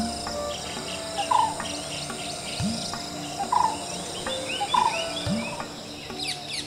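Birds calling and chirping over a steady, high insect buzz, with a low call that rises in pitch repeating about every two and a half seconds.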